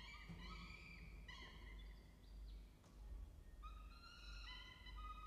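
Peregrine falcon chick giving a rapid series of thin, high begging calls while it is fed, several a second, with a pause of about a second and a half midway before the calls resume.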